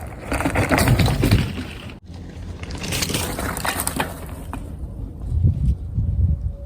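Mountain bike being ridden on a dirt trail: tyre and trail noise with crackling over twigs and leaves in two loud stretches, broken by an abrupt cut about two seconds in, then a low rumble near the end.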